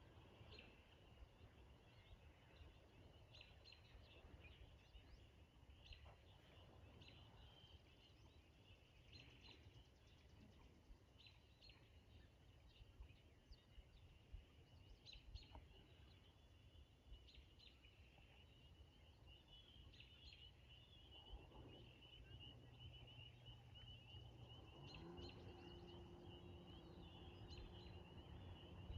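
Faint dusk ambience: scattered short bird chirps over a steady, high-pitched trilling chorus that grows denser in the second half, with a low background rumble. A steady low hum joins about 25 seconds in.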